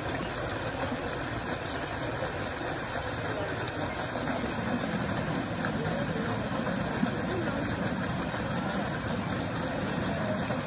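A bubbler fountain jet splashing steadily into a shallow pond, a constant rushing water noise.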